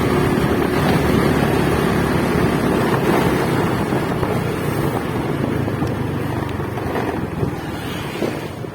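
Honda Biz's small single-cylinder engine running as the bike is ridden, with wind rushing over the microphone; the sound eases off a little near the end.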